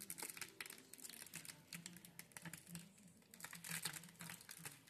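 Faint scratching and crackling of a root rake and chopstick working through a juniper's root ball, untangling roots and loosening soil, with many small irregular clicks.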